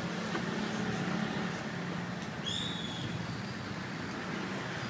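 Steady background hum of a busy place, with one short high chirp about two and a half seconds in.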